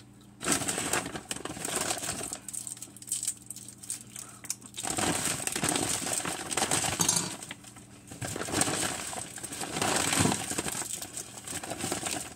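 Jolly Rancher hard candies being unwrapped: plastic wrappers crinkling, with the hard candies clicking as they drop together, in irregular spells with short pauses between.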